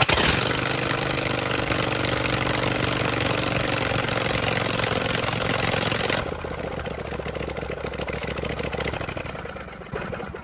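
John Deere LA165 lawn tractor's V-twin engine running on choke at half throttle just after starting, steady. About six seconds in it drops to a quieter, lower note, then dies away near the end. It is running well on its freshly cleaned carburetor.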